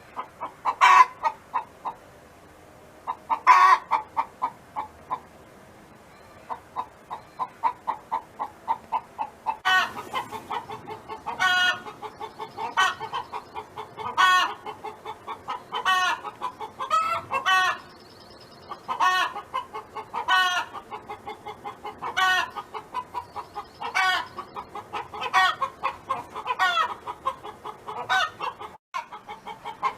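A hen cackling: fast runs of short clucks broken by loud, drawn-out squawks. The squawks come twice in the first few seconds, then from about ten seconds in they repeat roughly every second and a half.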